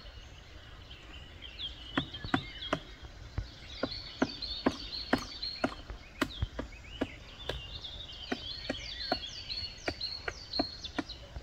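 Black woodpecker pecking at a tree trunk: sharp knocks at an irregular pace, about two or three a second. Many short, high chirping bird calls run over them.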